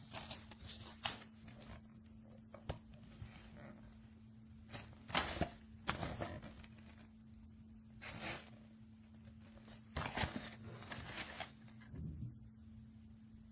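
Handling noise: irregular rustles and light knocks every second or two, over a steady low hum.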